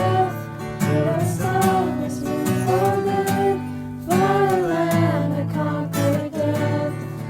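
Music: acoustic guitar playing under a singing voice.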